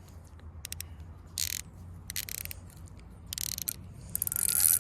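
Spinning reel's drag clicking in short bursts as a hooked catfish pulls line, then slipping steadily near the end as a run of fast clicking; the drag is set too loose.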